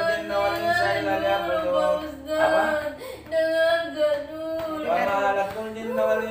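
A high-pitched voice holding long, wavering, song-like notes, broken by a few short pauses.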